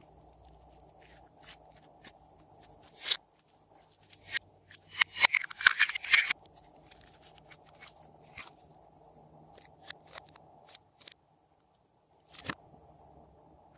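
Glossy slime being worked and mixed with clay and makeup, making scattered sharp clicks and crackles, with a dense run of crackling about five to six seconds in.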